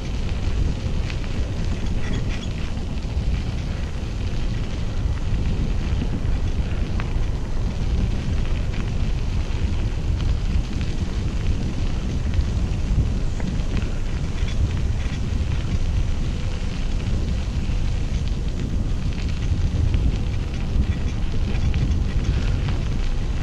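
Wind buffeting the microphone: a steady low rumble with faint scattered ticks.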